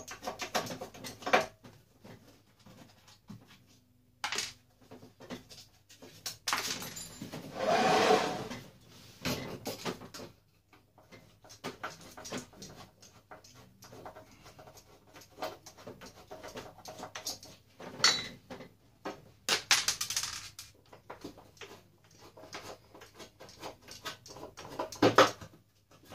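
Metal parts of an electric heat press being handled and unscrewed with hand tools: scattered clinks, scrapes and knocks, with a longer scraping rattle about a third of the way in and several sharper metal clanks later on.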